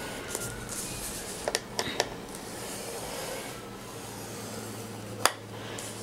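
A sheet of cardstock being slid and squared against the rail of a plastic scoring board, a soft rubbing of paper, with a few light clicks and one sharp tap about five seconds in.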